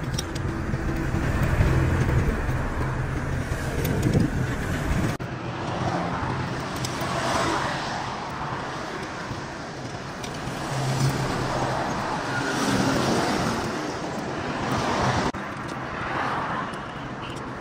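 Motor vehicle engine and road traffic noise, with sudden shifts about five and fifteen seconds in.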